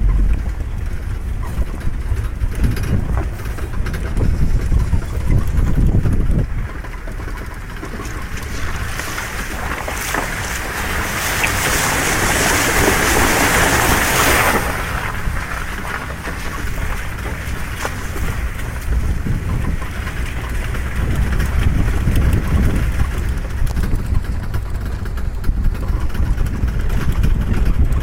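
Safari vehicle driving on a rough dirt track: a steady low engine and tyre rumble with wind buffeting the microphone. About nine seconds in, a loud hiss swells for some five seconds, then drops away.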